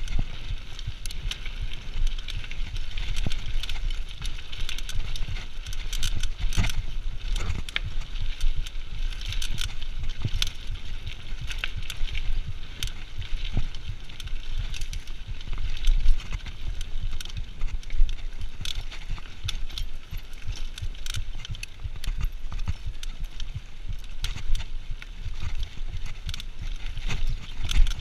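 2013 Giant Reign 2 mountain bike ridden over a gravel and dirt singletrack: a steady rush of tyre noise and low rumble, with frequent sharp clicks and rattles from the bike over bumps.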